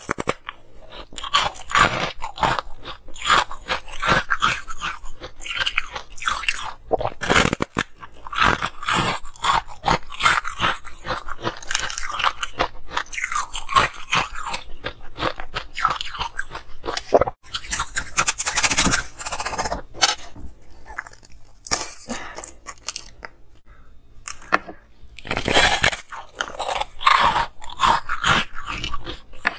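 Close-up crunching of a person biting and chewing a block of frozen, foamy flavoured ice: dense crackling crunches with a few short pauses between mouthfuls.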